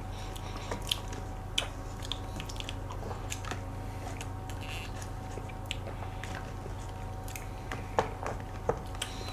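Quiet mukbang eating sounds: soft chewing of a creamy cheese dessert and cutlery clicking and scraping in a plastic dessert cup, with a few sharper clicks about a second in and near the end. A steady low electrical hum runs underneath.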